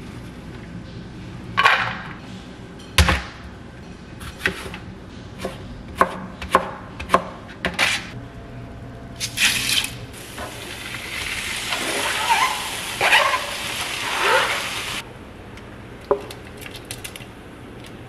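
Kitchen work sounds: scattered knocks and clatters of a knife, cutting board and cookware, then, about ten seconds in, water running steadily into a pot for about five seconds, stopping abruptly.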